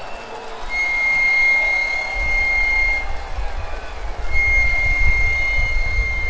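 Two long, steady, high-pitched whistle blasts, each held about two seconds, with a low rumbling noise underneath from about two seconds in.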